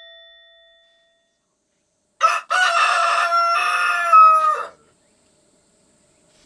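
A rooster crowing once, a cock-a-doodle-doo of about two and a half seconds that dips slightly in pitch at the end. Music fades out during the first second before the crow.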